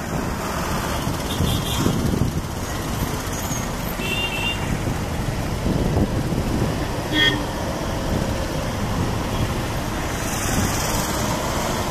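Boeing 777-300ER's GE90 turbofan engines at takeoff thrust during the climb-out, a steady low rumble. A couple of brief high chirps come about four and seven seconds in.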